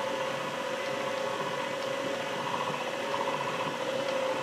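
KitchenAid Heavy Duty stand mixer running steadily on low speed, its motor humming as the wire whip beats powdered sugar into cream cheese frosting in the steel bowl.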